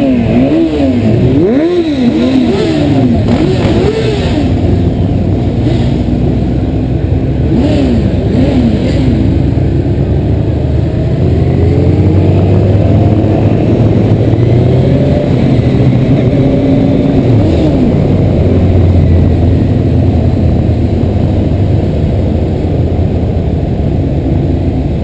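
Several motorcycle engines revving up and down in quick succession for the first few seconds, then a steadier running drone of engines with occasional slower rises and falls in pitch.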